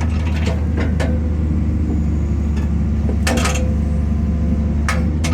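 Excavator's diesel engine running steadily under load, with a few sharp knocks on top, the longest about three seconds in.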